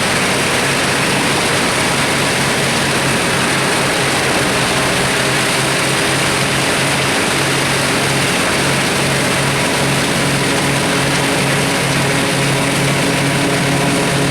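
Large mobile wood chipper running steadily and loudly, its engine hum under a dense, even roar with no pauses or changes in speed.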